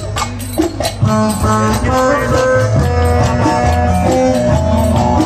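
Turkish folk dance music: clacking wooden spoons (kaşık) and finger cymbals (zil) keep a steady rhythm over a melody with a repeating bass line. The melody and bass come in strongly about a second in.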